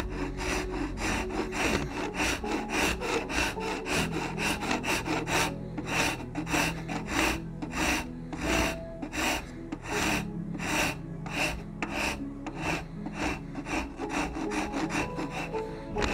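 Hand file stroking back and forth over a wooden gunstock, shaping the curve of the comb nose: a steady run of rasping strokes, about three a second.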